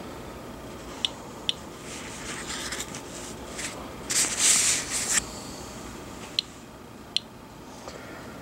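Radiation Alert Inspector Geiger counter giving single audible clicks a second or more apart, four in all, the slow rate of a background count of about 36 counts per minute. About four seconds in there is about a second of scraping and rustling as the counter is handled over a paper plate.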